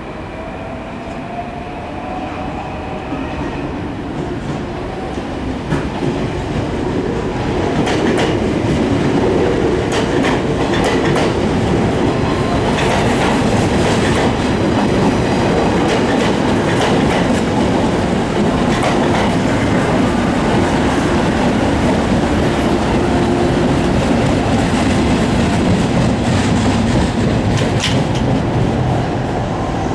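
Train running along the rails, growing louder over the first several seconds, then staying steady and loud with repeated clacks of the wheels over rail joints.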